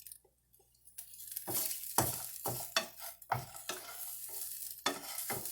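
Cauliflower fried rice sizzling in a frying pan while a utensil stirs it, knocking and scraping against the pan again and again. The sizzling starts about a second in.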